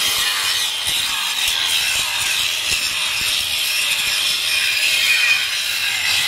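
Handheld electric angle grinder running under load, its disc grinding into the steel of old truck brake shoes: a steady high-pitched grinding noise.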